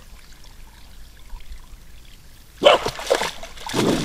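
Quiet at first, then about two and a half seconds in a dog barks a few times and splashes through shallow pond water.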